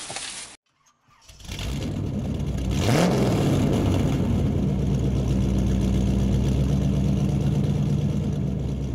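Vehicle engine starting, revving once with a rising pitch about three seconds in, then running at a steady idle.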